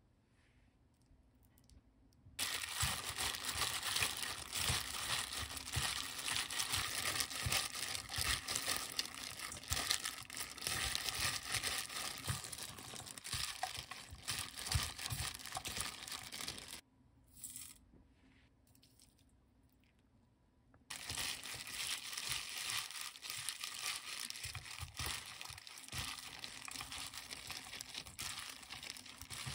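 Hands mixing seasoned shepherd's purse greens in a stainless steel bowl, a dense irregular rustling and squishing that starts about two seconds in and stops for a few seconds past the middle before resuming.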